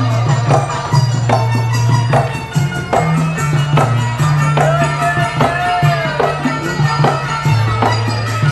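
Gamelan ensemble playing live: bronze keyed instruments and gongs struck in a steady beat about twice a second, each note ringing on, over low held notes.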